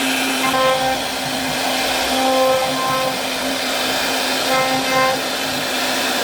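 A CNC router running steadily while it carves wood, with a constant motor hum and short whining tones that come and go several times.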